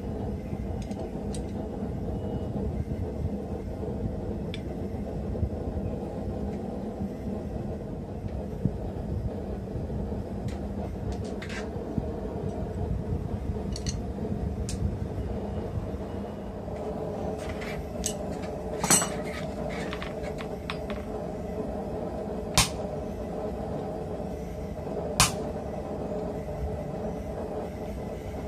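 Steady low rumble with a faint hum, under a handful of sharp metal clinks of blacksmith tongs and steel tools being handled, louder and more frequent in the second half.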